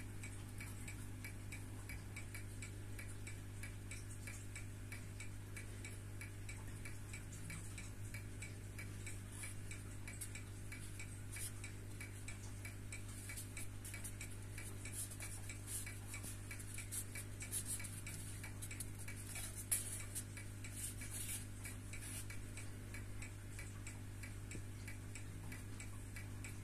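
A 1970s Citizen wristwatch ticking fast and evenly while running. Its metal presentation box is handled, with light rubbing and one sharp click about twenty seconds in.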